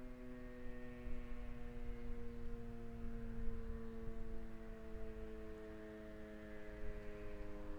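Federal Signal RSH-10 outdoor warning siren sounding its steady alert tone, held nearly level and sagging slightly lower in pitch, with wind rumbling on the microphone underneath.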